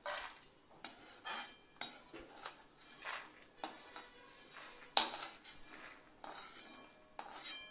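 Perforated steel skimmer scraping and clinking against a metal kadai while scooping out fried urad dal vadiyalu and tipping them onto a plate. A string of sharp scrapes and knocks, the loudest about five seconds in.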